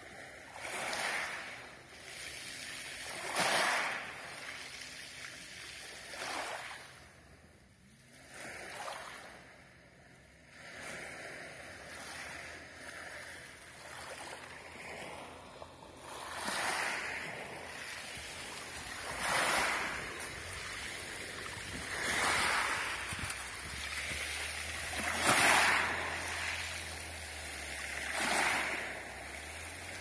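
Small waves lapping onto a pebble beach. Each wave breaks and washes over the stones with a hiss, swelling and fading about every three seconds.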